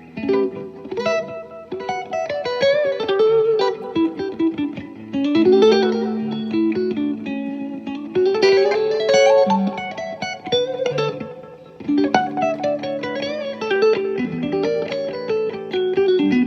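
Electric guitar played through a guitar amplifier: melodic lead lines with string bends that rise and fall, over low held notes.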